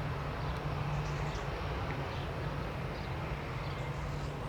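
Airbus A319 airliner's jet engines idling at a distance, a steady low drone with a faint hiss above it.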